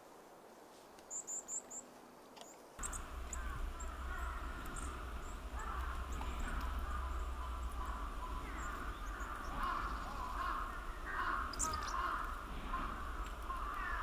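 A varied tit gives four quick, thin, very high call notes. About three seconds in, the background changes suddenly to a steady low outdoor rumble with a busy chatter of distant bird calls and occasional high chirps.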